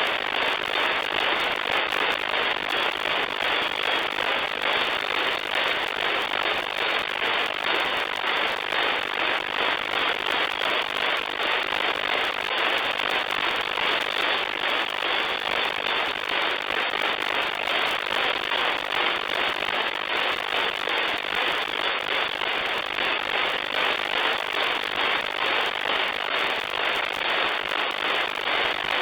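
Static from an RTL-SDR V4 shortwave receiver tuned to the 40-metre amateur band with no station transmitting: a steady, crackly hiss of band noise, cut off above the voice range by the single-sideband filter.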